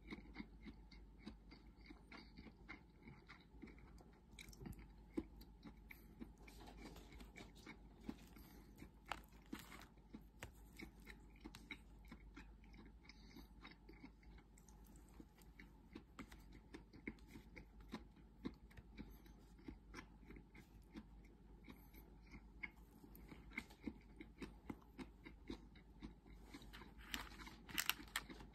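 Faint chewing, with light clicks of wooden chopsticks on a plastic bento tray as food is picked up. The clicks bunch together just before the end.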